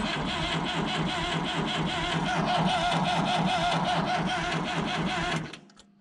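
Starter motor cranking the cold Perkins diesel of a Massey Ferguson backhoe with a steady rhythmic chug for about five and a half seconds, then stopping without the engine catching. The slow, failed start is put down to the cold: the battery is short of amps.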